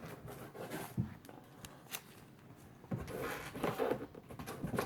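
Comic books being handled and shuffled: soft rustling, with a light tap about a second in and another about two seconds in.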